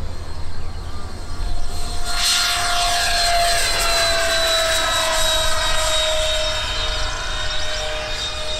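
Electric RC model aircraft's motor and propeller whining as it flies past, the pitch falling slowly and the sound swelling from about two seconds in.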